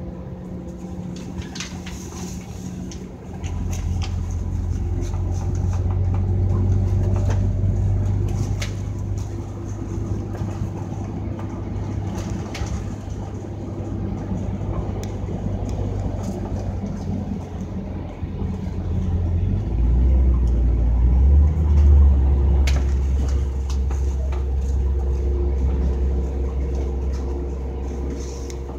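Scania K310UD double-decker bus's five-cylinder diesel engine running under way: a deep drone builds about three seconds in, holds, then shifts to a lower, stronger note about twenty seconds in. A few faint clicks and rattles are scattered through.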